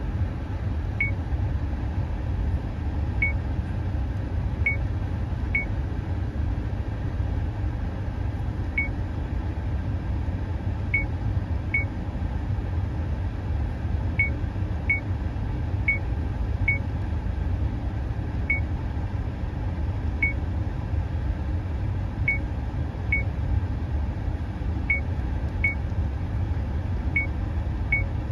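70mai A200 dashcam's button-press beeps: short single high beeps, about twenty at uneven intervals, one for each press of its menu buttons, with the speaker volume set to low. A steady low rumble runs underneath.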